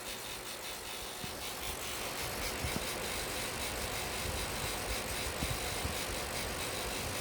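Electric fan running with a steady, rapid mechanical ticking and rattling, the fault that the owner blames on blowing it out with 100 psi compressed air.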